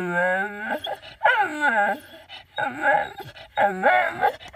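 Bull terrier whining and 'talking': a run of about five drawn-out whiny calls, each bending up and down in pitch, with short breaks between them.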